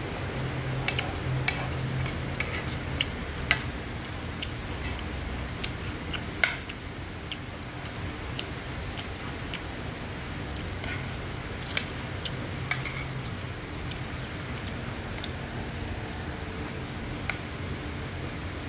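A metal spoon stirring fried rice in a nonstick frying pan, with irregular clicks and taps of the spoon against the pan over a steady low hum.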